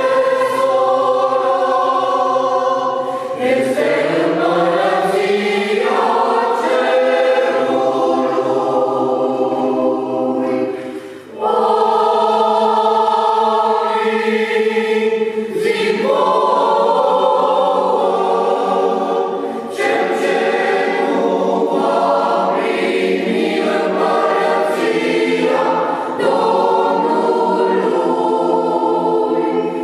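Mixed Orthodox church choir of women's and men's voices singing a hymn a cappella in sustained chords, in long phrases with short breaks between them; the clearest break comes about eleven seconds in.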